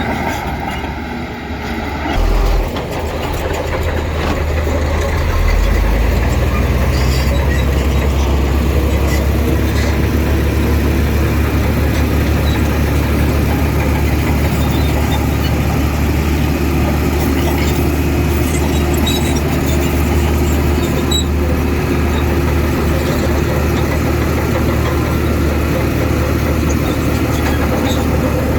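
Heavy construction machine's diesel engine running steadily with a low drone. It briefly surges a couple of seconds in and steps up in level about five seconds in, then holds steady.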